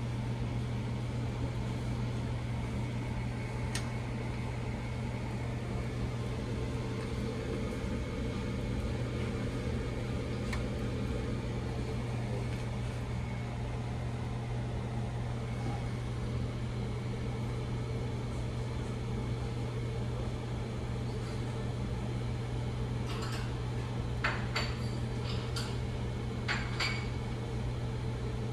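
Automatic pancake machine running with a steady low electrical hum. A few light clicks come near the end.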